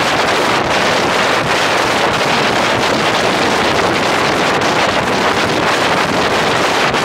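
Loud, steady wind rush over the microphone of a moving 1942 Ford GPW jeep, with the jeep's driving noise underneath.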